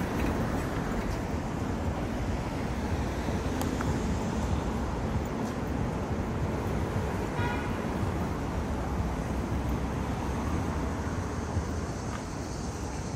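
Steady city street traffic noise, with a short high-pitched sound about halfway through.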